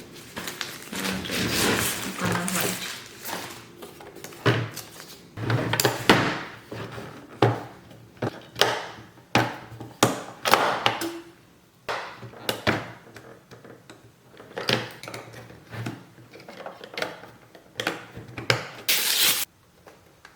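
Handling noises: an irregular string of knocks, clicks and rustles as objects are picked up and moved, with a brief loud hiss about a second before the end.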